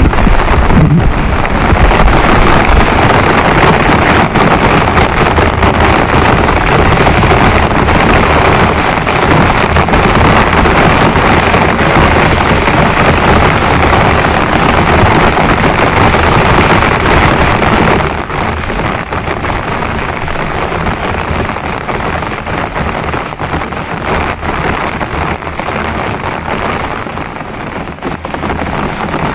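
Heavy rain pouring down in a steady, loud rush, easing somewhat about two-thirds of the way through.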